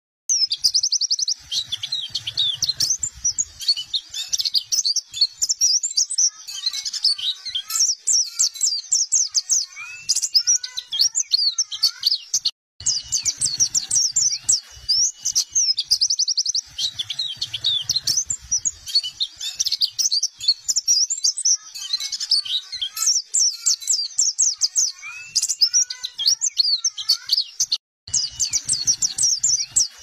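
Caged white-eye (pleci buxtoni) singing a long, rapid, high twittering song in continuous rolls, breaking off briefly twice.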